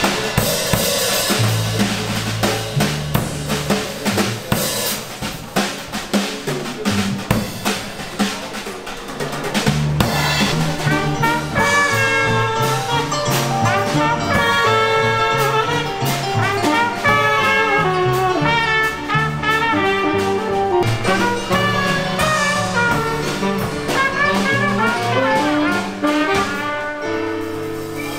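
Jazz band playing: the drum kit leads with snare, bass drum and cymbal strokes over a low bass line. About ten seconds in, a trumpet comes in and plays the melody over the band, with a keyboard underneath.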